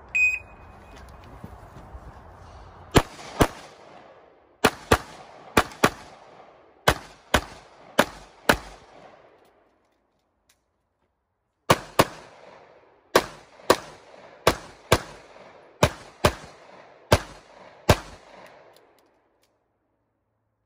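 Electronic shot-timer start beep, then a CZ Shadow 2 pistol firing rapid pairs of shots, about two dozen in all, in two strings with a break midway. Each shot rings briefly after it.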